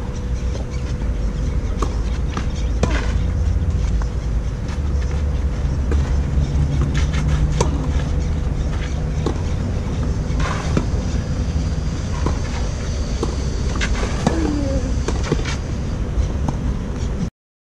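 Tennis rally on a clay court: sharp racket-on-ball strikes every second or two, over a steady low rumble.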